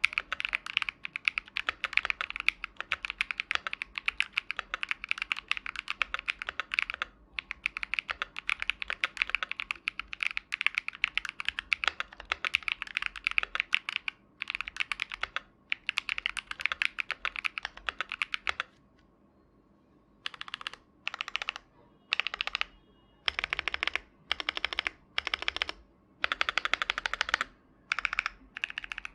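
Typing on a KBD67 Mark II mechanical keyboard with KTT Kang Gray tactile switches on a brass plate, keys clacking in fast continuous runs for the first two thirds. After a short pause there are separate short bursts of rapid keystrokes, about one a second.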